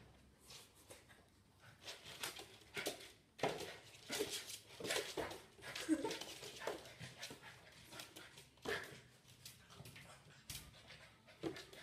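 Golden retriever puppy scrambling on a laminate floor and pawing at a mirror: claws click and skitter in quick, irregular flurries. A few short puppy whimpers come about halfway through.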